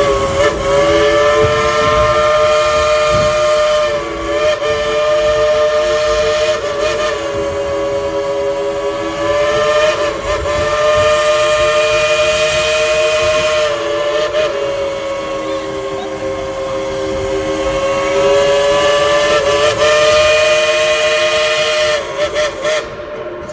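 Steam whistle of the Dollywood Express locomotive Cinderella, blown by the engineer in long held blasts: a chord of several notes sounding together that swells and bends slightly in pitch, with a few brief dips, and stops shortly before the end.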